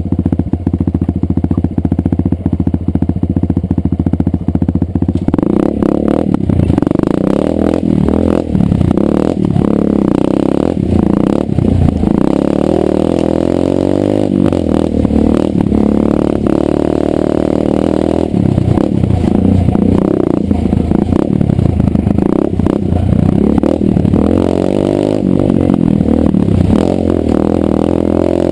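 Dirt bike engine idling steadily for about five seconds, then pulling away and running along a rough trail, engine speed rising and falling with the throttle, with scattered knocks from the bumpy ground.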